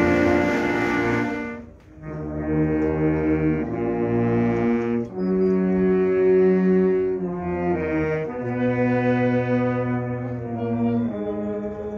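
Wind band of clarinets, saxophones, trumpets and sousaphone playing slow, long-held chords, with a short break about two seconds in.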